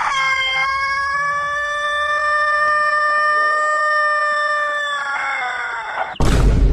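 Rooster giving one very long crow, held at a steady pitch for about five seconds before it falls away. A loud, sudden blast of noise cuts in near the end.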